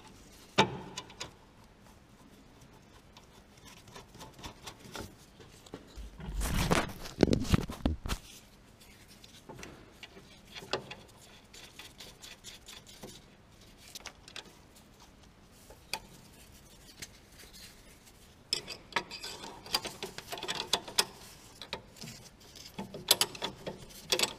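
Hand tools clicking and clanking on a car's front anti-roll bar drop link as it is worked loose. There is a louder burst of handling noise about six to eight seconds in, and a run of quicker metallic clicks near the end.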